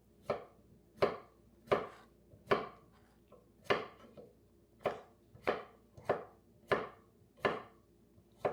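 Kitchen knife chopping on a cutting board: about a dozen even strokes, a little more than one a second, with a short pause about three seconds in.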